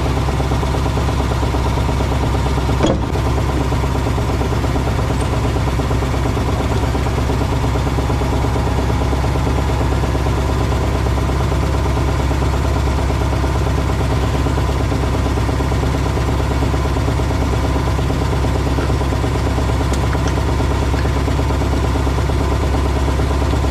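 An engine running steadily, a constant mechanical drone that does not change, with one sharp knock about three seconds in.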